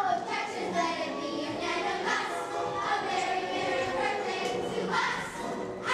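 A large group of children singing together as a stage chorus.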